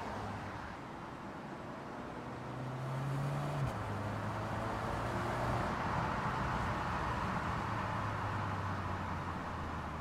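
Volkswagen Tiguan SUV driving by with its engine running and tyre and road noise. The engine note climbs and then drops sharply a little under four seconds in, then steps lower again near six seconds. The road noise swells to its loudest in the second half.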